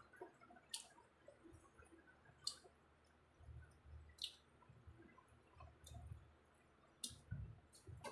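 Faint eating sounds: a few sharp mouth clicks and smacks spaced a second or two apart, with soft low thuds of chewing in between.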